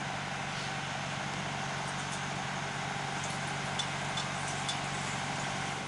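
Steady low hum of the yacht's engine running, heard inside the cabin, with a few faint metallic clinks as a pot lid is lifted off a steaming pot.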